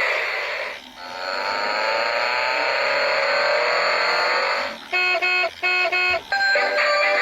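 A vehicle-like sound effect: a noisy rush that rises steadily in pitch, like an engine speeding up. About five seconds in, it gives way to a bright electronic tune of short beeping notes.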